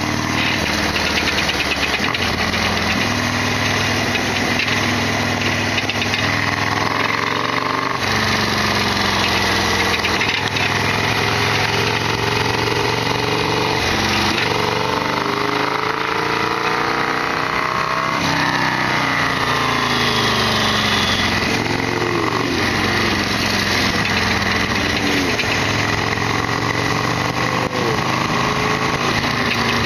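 Harley-Davidson Sportster XL1200R's air-cooled V-twin engine running under way. The engine pitch repeatedly climbs and drops as the revs rise and fall through gear changes.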